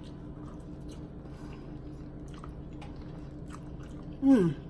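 A person chewing a mouthful of spaghetti and sausage, with small wet mouth clicks, over a faint steady hum. A brief vocal sound with falling pitch comes near the end.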